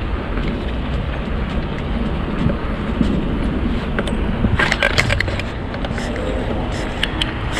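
Steady rushing wind and road noise on a bicycle-mounted camera while riding down a street, with a brief burst of sharp rattling clicks a little past halfway.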